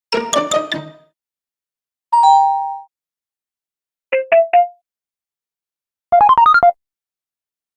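Four separate short multi-note chime sound effects with silence between them. First comes a quick cluster of about six tinkling strikes, then a two-tone ding about two seconds in. Three quick rising notes follow about four seconds in, and a fast run of about nine short notes comes near the end.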